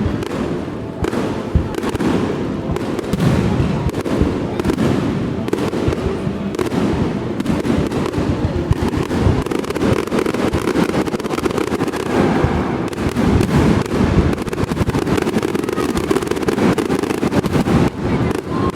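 Aerial fireworks going off in a dense, unbroken barrage of bangs and crackle.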